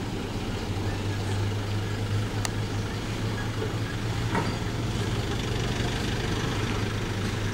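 Steady low engine hum of motor traffic, an even drone with no rise or fall and a couple of faint ticks in the middle.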